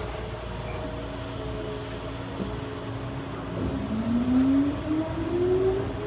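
Tobu 9000-series electric train's traction motors and chopper control whining under power, with a steady hum. The whine starts rising steadily in pitch a little over halfway through as the train accelerates away, heard from on board.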